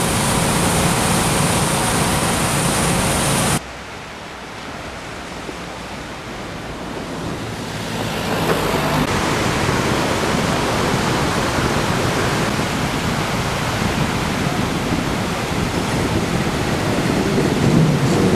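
Surf breaking on a sandy beach with wind on the microphone, a steady rushing wash. For the first few seconds a steady hum sits under it; then the sound cuts off abruptly and drops in level before the surf noise builds back up and holds steady.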